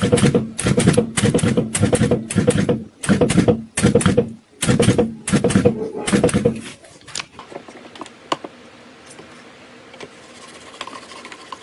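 A battery spot welder firing repeatedly, about two sharp cracks a second, each with a short buzz, as its electrode tacks metal strip onto cylindrical battery cells. It stops about seven seconds in, and a much fainter scraping follows.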